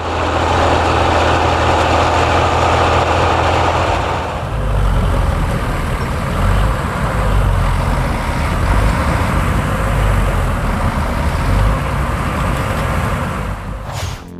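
A vehicle engine running steadily; about four seconds in the sound changes to a heavier, more uneven low rumble.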